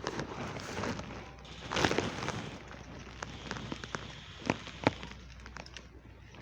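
Rustling and crackling, with a louder rustle about two seconds in and two sharp clicks close together near the end.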